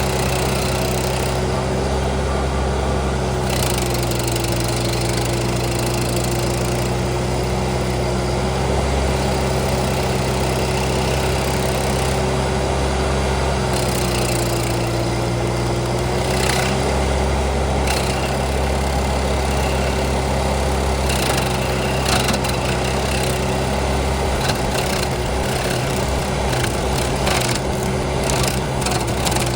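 Case TL100 mini skid steer's engine running steadily with a Toro hydraulic stump grinder grinding a spruce stump. Its steady hum dips slightly in pitch twice, and short sharp cracks come now and then in the second half.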